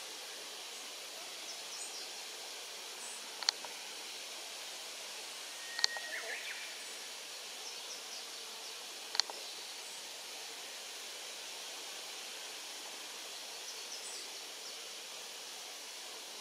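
Steady outdoor background hiss with faint high chirps now and then, broken by three sharp clicks a few seconds apart, the loudest sounds.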